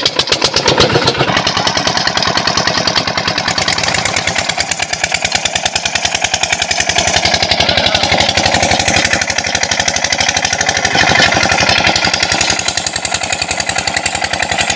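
25 HP Petter diesel engine running a tubewell pump with a steady, rapid beat, with water gushing from the outlet pipe.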